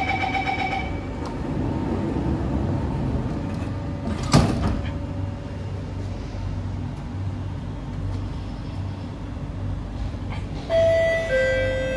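Door-closing warning beeps on a Kawasaki C151B metro train stop about a second in, and a single loud thump follows about four seconds in. The train then runs with a steady low rumble of motors and wheels, and near the end a two-note falling chime sounds, the chime that comes before the next-station announcement.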